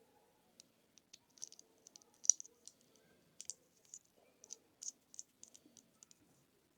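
Irregular small metal clicks and taps, about twenty, from a polished zirconium fidget spinner with a swapped-on metal button being handled; the loudest click comes just over two seconds in.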